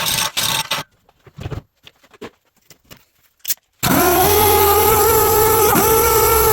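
Welding arc on steel frame tabs. A crackling weld ends under a second in, followed by a pause with a few small clicks. A steady, loud buzzing weld begins a little past halfway and runs on.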